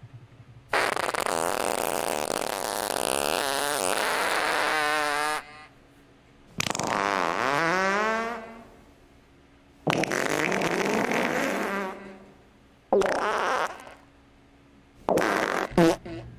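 A series of fart noises: one long, drawn-out fart, then several shorter ones, the last two quick and close together.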